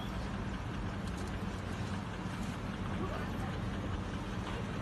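Steady low hum and street noise, with indistinct voices.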